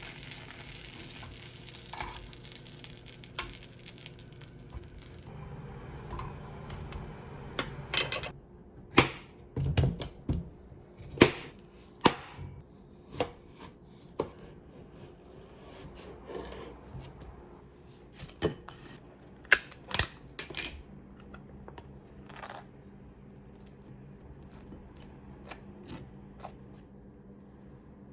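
Kitchen handling sounds during food preparation: about a dozen irregular sharp knocks and taps, some with a brief crinkle, over a faint steady low hum.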